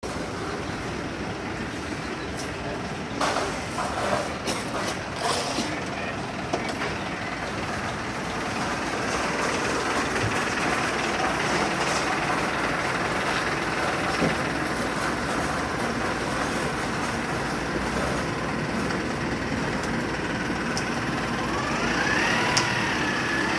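Construction-site noise: a heavy vehicle's engine running steadily under a broad din, with a run of sharp knocks and clatters a few seconds in.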